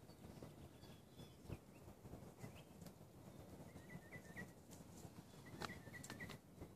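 Faint outdoor quiet with a small bird chirping in the distance, short rapid notes repeated in two runs in the second half, and a few faint clicks near the end.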